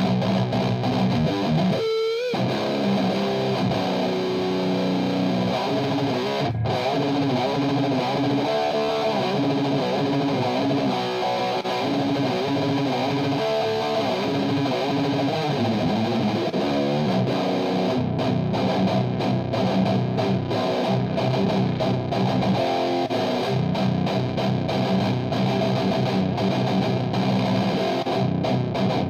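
Electric guitar played through a Mesa/Boogie Road King II tube amp on a distorted high-gain channel, continuous riffing, with a short squealing bend about two seconds in.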